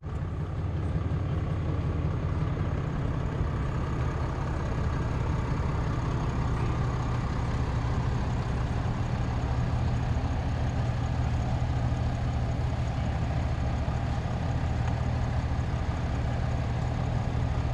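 Boat's outboard motor running at a steady speed underway, an even low hum with rushing wind and water noise over it.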